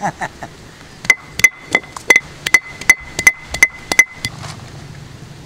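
Stone roller of an ammi grinding stone knocked down onto the stone slab about ten times, roughly three knocks a second, each knock sharp with a brief ring: pounding turmeric to crush it before grinding.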